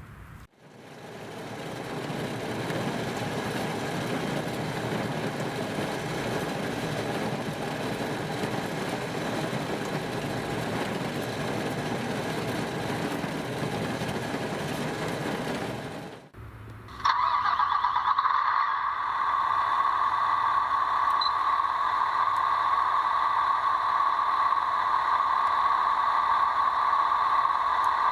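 RC construction machine running: an engine sound builds up over the first couple of seconds and runs steadily. After a brief break, about sixteen seconds in, a louder, steady high-pitched whine takes over.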